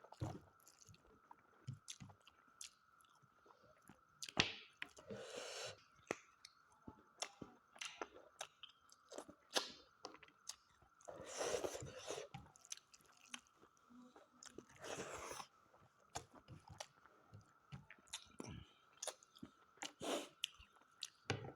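Close-up chewing and biting of mutton on the bone, with wet mouth smacks and small crunches, broken by a few louder breaths.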